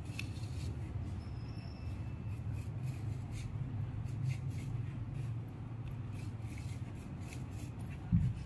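Utility knife slicing along the edge of a roll carpet, a string of short, scratchy cuts through the woven backing over a steady low hum, with one thump near the end.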